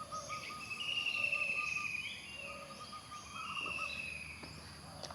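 Outdoor ambience of animal calls: a rapid run of repeated chirps alongside long, steady, high-pitched trilling notes that come and go.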